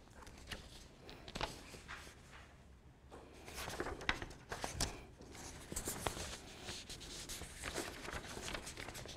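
Sheets of paper rustling and crackling as they are handled and leafed through, in a string of short, irregular rustles that get busier after about three seconds.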